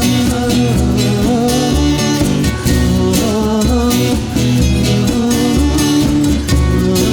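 Acoustic band playing live: strummed acoustic guitars over a steady, rhythmic bass line, with no vocals yet.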